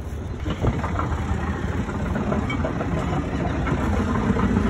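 A vehicle engine idling with a steady low rumble that grows slowly louder, with a few light knocks about a second in.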